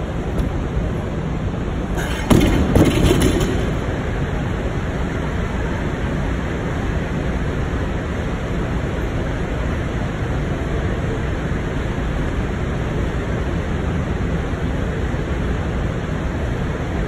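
Steady rushing noise with no clear pitch, with a brief cluster of knocks and clatter about two seconds in.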